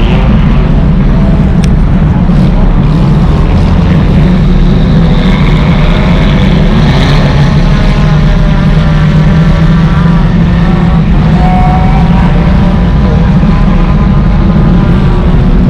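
Enduro race car engines running hard, very loud and continuous, with several engine pitches climbing and falling as the cars accelerate and lift off.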